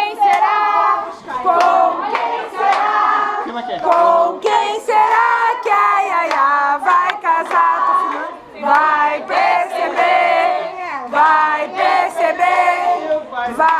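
A group of people singing together, with hands clapping along.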